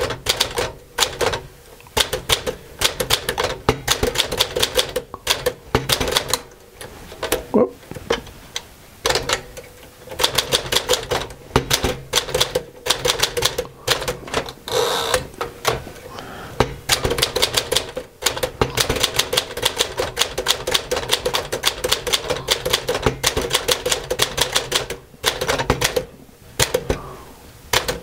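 1949 Smith-Corona Clipper manual portable typewriter being typed on: quick runs of typebar strikes against the platen, broken by short pauses.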